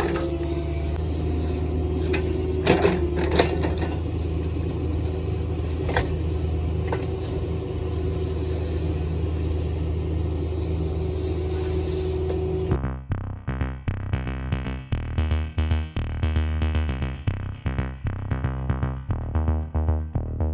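Construction equipment engine running steadily, with a few knocks. About two-thirds of the way in it cuts off suddenly and is replaced by electronic music with a drum-machine beat.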